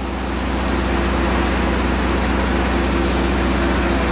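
Tractor engine running steadily at low idle while it drives a homemade grain mill: a steady low drone with the mill's mechanical whir over it.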